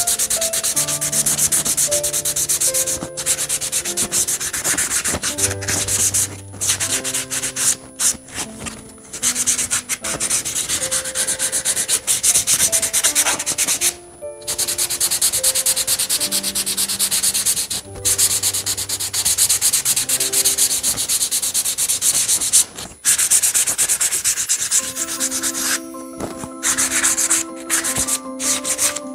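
Birch wood rice paddle being sanded by hand with a small piece of sandpaper: a scratchy scrubbing of quick back-and-forth strokes in runs of a few seconds, broken by short pauses. This is the hand work that knocks down the sharp edges before lacquering.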